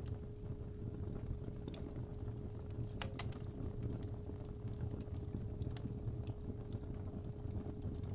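Fireplace fire crackling, with scattered sharp pops (the strongest about three seconds in) over a low rumble, under a steady 417 Hz sine tone.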